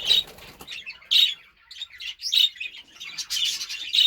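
Budgerigars chirping in quick runs of short, high calls, with a brief pause about a second and a half in.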